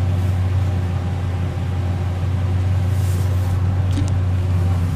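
Pickup truck engine idling steadily with a constant low hum, and a brief light click about four seconds in.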